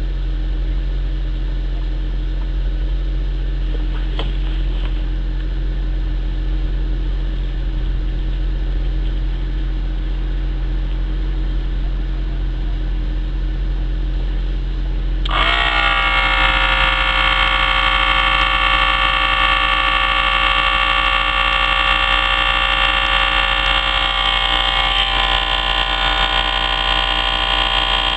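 A steady low hum, then about halfway through a loud, buzzing, steady drone starts suddenly and keeps running: a portable air compressor inflating the Audi allroad's rear air-suspension spring.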